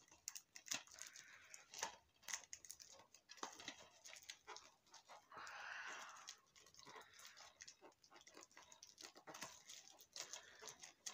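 Faint clicks and crinkles of fingers picking and scratching at the plastic shrink-wrap on a DVD case, with a longer rustle about five seconds in.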